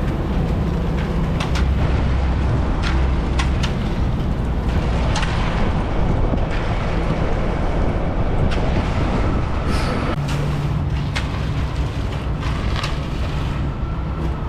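Concrete mixer truck's diesel engine running steadily, with scattered sharp clanks and knocks over it.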